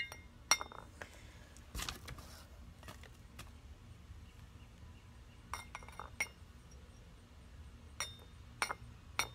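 Metal hand trowel clinking against small planting pots while scooping potting mix into them: several sharp, separate clinks with a short ring, spread irregularly across the few seconds.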